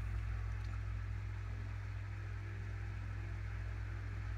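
Steady low hum with an even faint hiss, unchanging throughout: background room noise with no distinct event.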